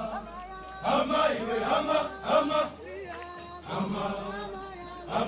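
A large group of men in police training chanting and singing together in unison, a drill chant sung in phrases.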